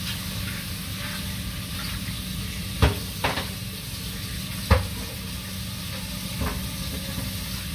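A pan being washed in a stainless steel kitchen sink: steady hiss with four sharp clanks of the pan knocking against the sink, the loudest about three seconds in and just before five seconds.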